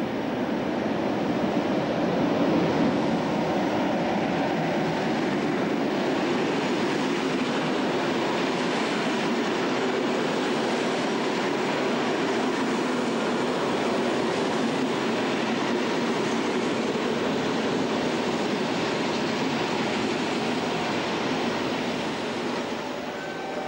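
SNCB class 62 diesel locomotive, with its EMD two-stroke V12 engine, passing with a rake of passenger coaches: a loud, steady mix of engine running and wheel-on-rail noise.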